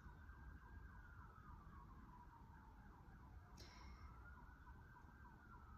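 Faint emergency-vehicle siren wailing in the distance, its pitch rising and falling slowly twice. A brief click about three and a half seconds in.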